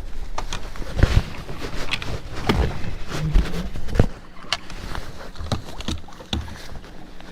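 Irregular knocks, clicks and a few heavier thumps of handling on a fishing boat, over low rumbling wind and water noise.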